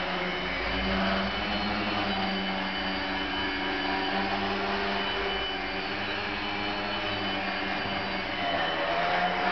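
Electric motor and propeller of a small indoor foam 3D model plane running steadily as it hovers nose-up on the prop, a constant whine with a slight shift in pitch near the end.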